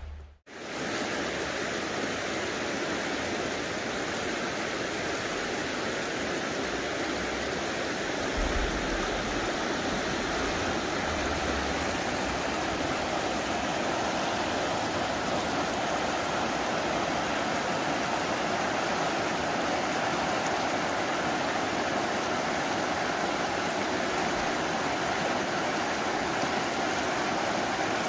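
A stream running steadily, a constant rush of water.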